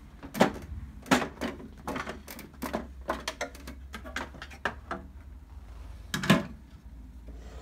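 Plastic side cover of a Brother PR embroidery machine being worked loose and lifted off: a run of hard plastic clicks and knocks, with three louder knocks about half a second in, about a second in and about six seconds in.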